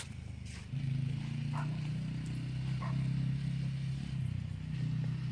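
Off-road vehicle's engine running at a steady pitch as it laps a dirt track, growing louder about a second in.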